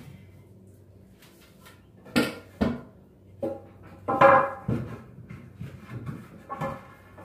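Wooden boards and lumber knocking and clattering as they are handled and set down. There are a few separate sharp knocks, the loudest clatter comes just past the middle, and a faint steady hum lies underneath.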